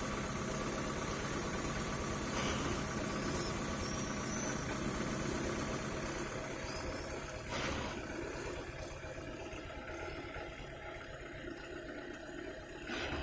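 Car petrol engine idling roughly and unevenly on a test run after a valve lapping job; the owner finds the spark plugs wet with fuel despite 12 bar compression on every cylinder. It grows quieter after about six seconds, with a short sharp noise about seven and a half seconds in and another near the end.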